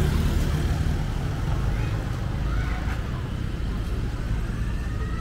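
City street traffic: a low engine rumble that is loudest at the start and gradually eases, with indistinct voices in the background.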